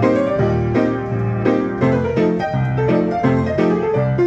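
Player piano playing a QRS paper music roll: piano chords and melody notes struck in a steady rhythm.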